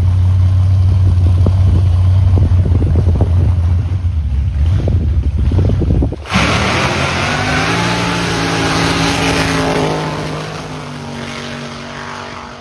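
A drag car's engine rumbling heavily at the starting line, then, about six seconds in, launching and running hard down the strip, its note climbing and then fading as the car pulls away.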